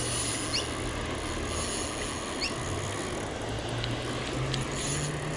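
Spinning reel's drag clicking steadily as a hooked carp pulls line off against it.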